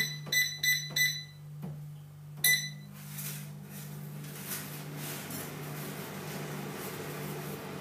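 Air fryer's touch panel beeping as it is set: three short beeps in the first second and one more about two and a half seconds in. The air fryer's fan then runs with a steady whir as it preheats.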